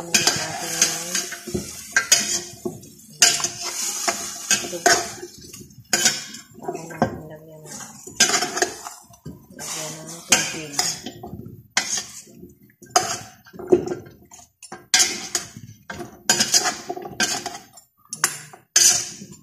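A metal spoon clanking and scraping against a stainless steel pot while goat meat and vegetables are stirred and mixed in it. The strokes are repeated and irregular, each with a short metallic ring.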